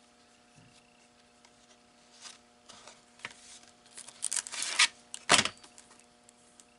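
Clear plastic packaging of a stamp set and metal die sheets being handled: scattered crinkles and rustles, a busier stretch about four seconds in, and a sharp tap a little after five seconds, over a faint steady hum.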